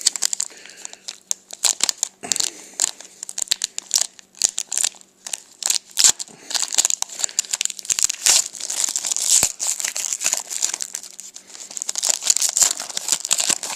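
Hockey card pack wrappers crinkling and tearing as packs are opened and the cards inside handled: a dense, irregular run of crackles and rustles.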